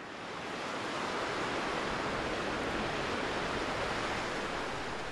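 Sea surf breaking and washing around a rock: a steady rush of water that swells in over the first second and eases off near the end.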